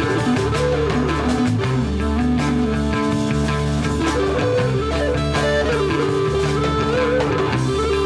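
Rock music led by electric guitar, with bass and drums keeping a steady beat.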